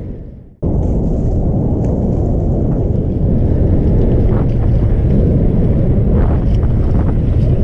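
Steady wind buffeting the microphone, heavy and low, which drops out briefly and cuts back in about half a second in.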